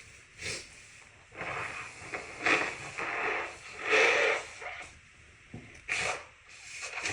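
A person blowing their nose, a long run of forceful noisy blows through the nose starting about a second in, with short sharp breaths through the nose before and after.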